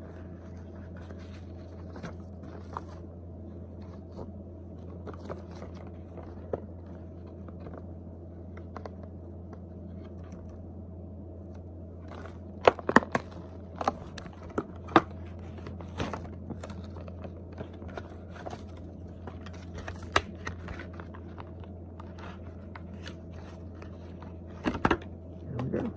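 Plastic blister packaging and its cardboard backing being crinkled, bent and torn open by hand, with scattered sharp cracks and crunches of the plastic, a cluster of the loudest ones about halfway through. A steady low hum runs underneath.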